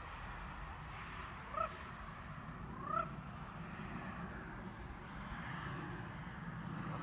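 Two short, rising animal calls about one and a half seconds apart, over a steady low rumble.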